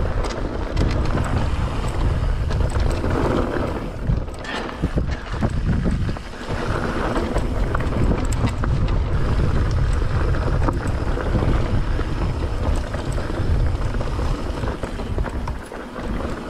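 Mountain bike descending dry dirt singletrack: a steady rumble of wind buffeting the action-camera microphone, with tyre noise on loose dirt and scattered small knocks and rattles from the bike over rough ground.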